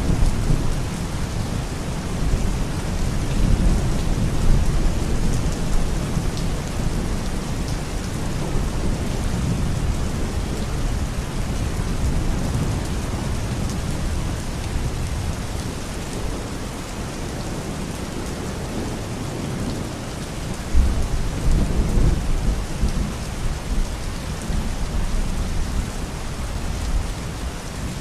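Steady rain with rolling thunder: a deep rumble under the hiss of the rain that eases off in the middle and swells again about three-quarters of the way through.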